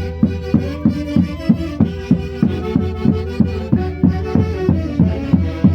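Andean folk orchestra (orquesta folklórica) playing a lively Santiago dance tune. A fast, even drumbeat, about four strokes a second, runs under held melody notes.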